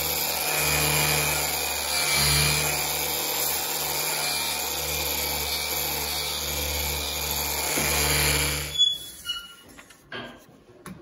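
Handheld electric disc sander with a flat sanding disc running steadily against the rail of a chainsaw guide bar, dressing the rail smooth and square. The motor cuts off about nine seconds in, followed by a few light clicks of handling.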